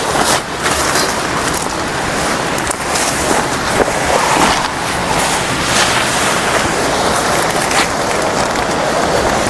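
Waterfall and stream water rushing steadily and loudly, with a few faint clicks over it.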